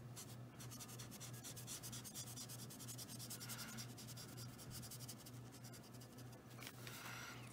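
Felt-tip alcohol marker, a Spectrum Noir, scratching lightly across a gesso-primed coloring-book page in quick short strokes. Faint, over a steady low hum.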